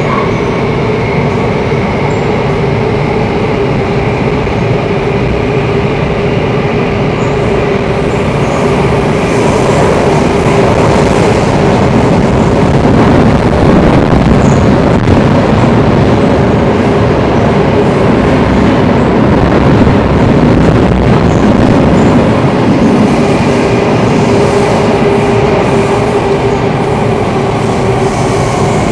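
MRT train running, heard from inside the passenger car: steady rolling noise of the wheels on the track with a held hum and a fainter high whine. It grows a little louder midway and eases again toward the end.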